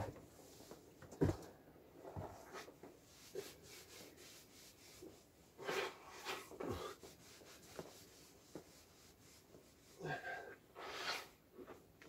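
Towel rubbed over wet hair, soft rustling in short bursts, with one low knock about a second in.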